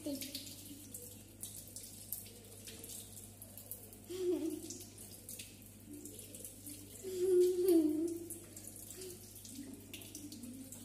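Water running from a wall tap and splashing as feet are washed under it during wudu ablution. A voice murmurs briefly twice, about four seconds in and again around seven to eight seconds.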